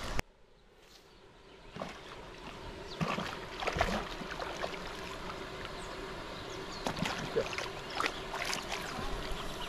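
Water splashing and sloshing as a hooked redtail catfish (pirarara) thrashes at the surface close to the bank, with several sharp splashes. It starts faint and builds over the first two seconds.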